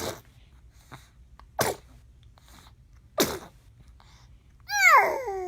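A baby sneezing three times, about a second and a half apart, each a short sharp burst. Near the end comes a high whining cry that falls in pitch and then holds steady.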